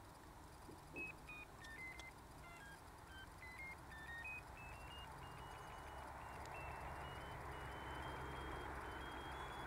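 Handheld ferret locator receiver sounding short electronic tones that jump up and down in pitch, then climb step by step to a held high tone near the end: the signal strengthening as the receiver is brought over the collared ferret underground. A faint low rumble sits underneath.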